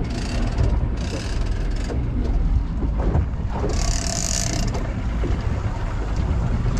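Big-game fishing reel ratcheting during a fight with a hooked fish, over the steady low rumble of the boat's engine. The louder high rasp comes in bursts, the strongest about four seconds in.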